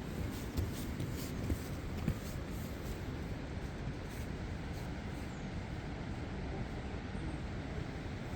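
Steady low rush of a river running through a gorge, with a few soft knocks in the first two seconds.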